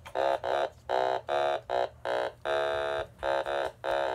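An Otamatone, the electronic note-shaped toy instrument, played as a melody: about ten short notes with brief gaps, one held longer a little past the middle, the pitch moving from note to note as the stem is fingered.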